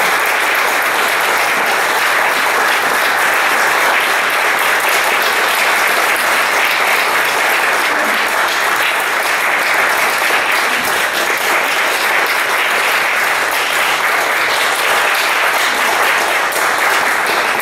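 Audience applauding at a steady level, a dense patter of many hands clapping.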